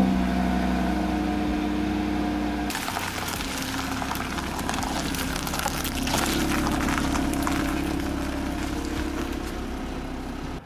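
Audi TT RS being driven: the engine runs steadily under a constant low rumble. About three seconds in, a louder hiss of tyre and road noise takes over, with the engine still running beneath it.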